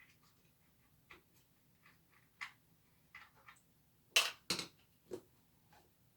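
Scattered clicks and knocks of a fan's parts being handled and worked at during disassembly, the loudest two close together a little past the middle.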